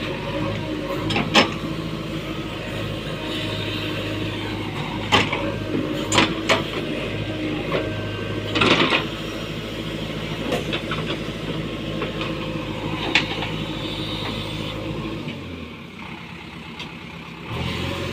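JCB backhoe loader's diesel engine running steadily, with several sharp metallic clanks, the loudest about a second and a half in and about nine seconds in. The engine sound drops away briefly about fifteen seconds in, then returns.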